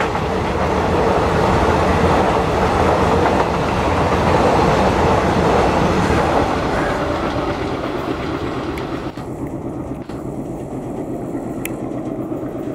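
Passenger coaches of an Indian Railways express train rolling past at speed, their wheels clattering over the rail joints in a steady rumble. About nine seconds in the last coach goes by, and the sound drops away to a duller, receding rumble.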